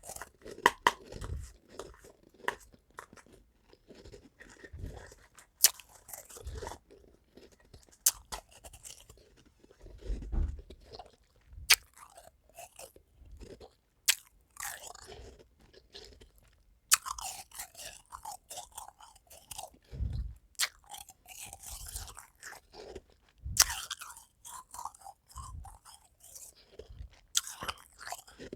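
A person biting and chewing ice close to the microphone: a sharp crack at each bite every few seconds, with gritty crunching chews between.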